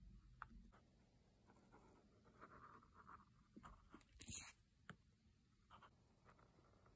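Faint scratching and tapping of a paint marker's tip drawing over the smooth surface of a phone case, with a brief louder scuff about four seconds in.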